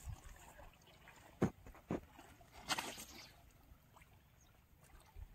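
Two sharp knocks about half a second apart, then a brief splash of water lasting about half a second, as a fishing rod is lifted at the water's edge.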